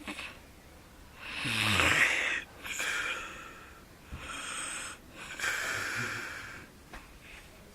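A man snoring heavily while sleeping off a hangover: four rasping snoring breaths. The first and loudest has a low, falling snort in it.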